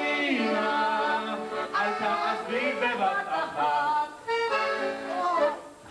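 A man singing through a microphone over instrumental accompaniment with steady held chords, breaking off briefly about four seconds in and falling away near the end.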